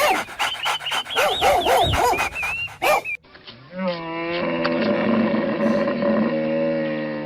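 Animal calls: a rapid run of high, arching cries for about three seconds, then, after a cut, one long, steady, lower call held for about three and a half seconds.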